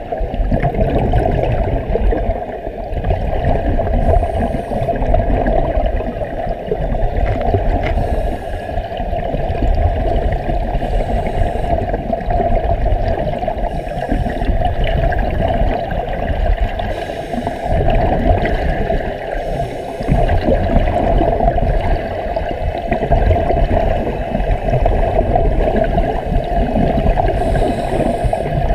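Muffled underwater rumble picked up through a submerged camera housing, with the gurgle of divers' air bubbles rising around it.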